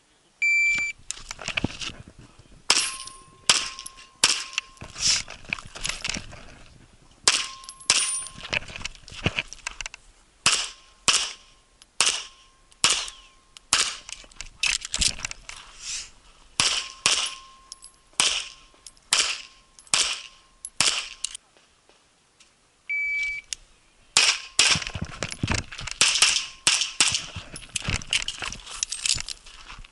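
An electronic shot-timer beep starts a rapid string of pistol shots from a single-stack Classic-division handgun loaded to minor power factor, fired in quick pairs and bursts with short pauses between them. A short ringing tone trails some of the shots. After a short break a second beep sounds and another fast string of shots follows.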